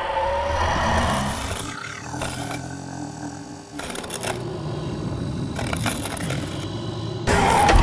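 Horror sound-effects track for an animated ghoul: creature growls and cries, sharp crackles and hits, and a sudden loud jump-scare hit near the end.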